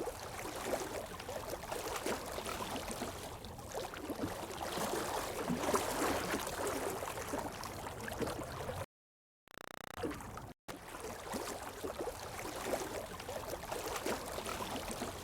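Running, gurgling water, an even rushing wash. It cuts out briefly about nine seconds in, then carries on.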